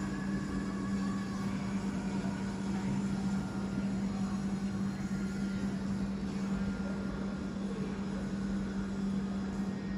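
A steady low hum with one constant pitch over an even background noise, unchanging throughout.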